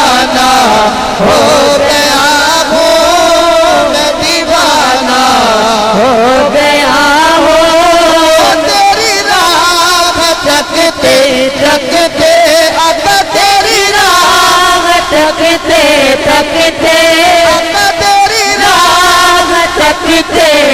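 A man's voice, amplified through a microphone, singing long, wavering melismatic notes of a Sufi devotional chant without clear words. A rhythmic pulse joins in from about halfway.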